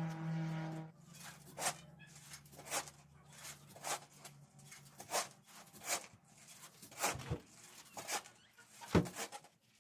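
Shovel scraping and tossing crushed-stone paver base, with a short stroke about once a second. An engine hum stops about a second in.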